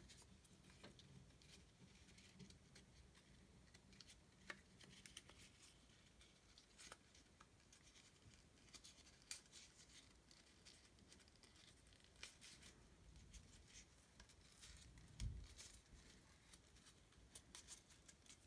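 Near silence, with faint scattered clicks and light taps of a Testo 570 digital manifold's plastic front housing and rubber keypad being handled, and one soft thump about fifteen seconds in.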